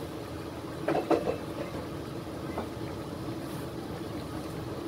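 Steady low hiss and faint hum of a pot of vegetable stew cooking on the stove, with a couple of short sounds about a second in.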